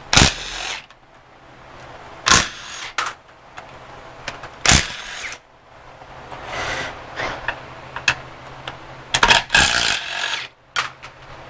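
Ryobi cordless impact driver run in about six short bursts, backing out 12 mm bolts.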